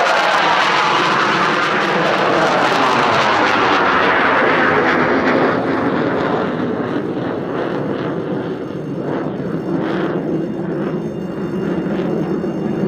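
F-16 fighter jets in full-afterburner takeoff and climb-out: a loud, rough jet roar. It sweeps and swishes as one jet passes close, then turns thinner and crackling from about six seconds in as the next jet climbs away.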